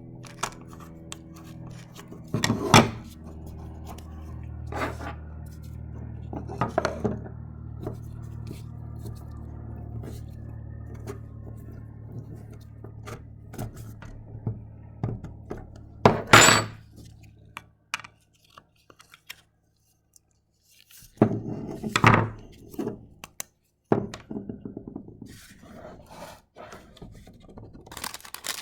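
Hand tools and parts being handled: scattered clicks, knocks and scrapes, with three louder clanks. A steady low hum runs underneath and stops about two-thirds of the way in.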